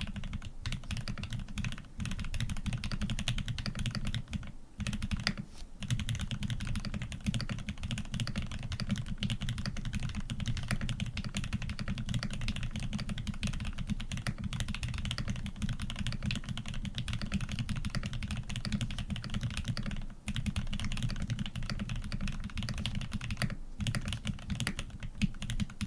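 Fast, continuous typing on a custom PC Montage mechanical keyboard with lubed Aquaking switches, a polycarbonate plate and PBT keycaps. The keystrokes run in a dense stream, broken by a few short pauses.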